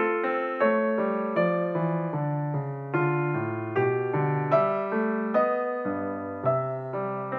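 Background piano music: a gentle melody of single notes and chords played at an even, unhurried pace, each note fading before the next.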